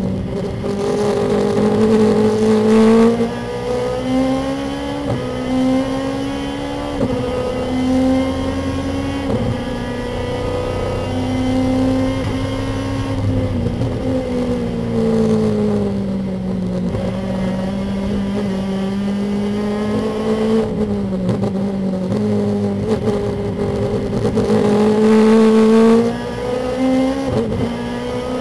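Lexus IS-R race car's engine heard from inside the cockpit at racing speed. Its pitch climbs in steps through several gear changes in the first half, falls away as the car slows, then climbs again before easing off near the end.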